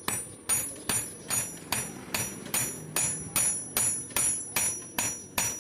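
Hand hammer striking steel on an anvil in a steady rhythm, about two and a half blows a second, each blow leaving a high metallic ring: an old file being forged into a knife blade.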